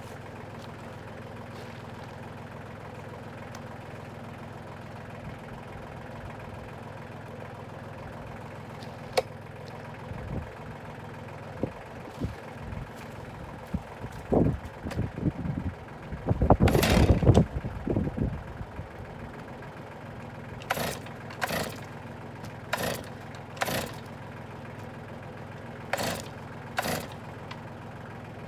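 Tractor engine idling steadily. About two-thirds of the way in comes a loud clatter of handling, then about six quick rasps of a Stihl chainsaw's starter cord being pulled, and the saw does not start.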